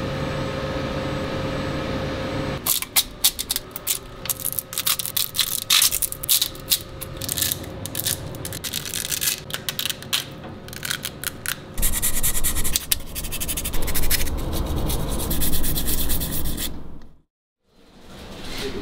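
A steady hum, then a long run of sharp snapping and crackling clicks as cured resin support structures are broken off a 3D print by hand. This gives way to a denser rubbing, scraping noise, which cuts off shortly before the end.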